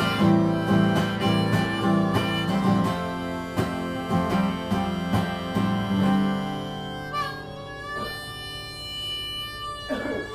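Acoustic guitar strumming with harmonica in a folk song's instrumental ending. About seven seconds in, the strumming stops and one long harmonica chord is held.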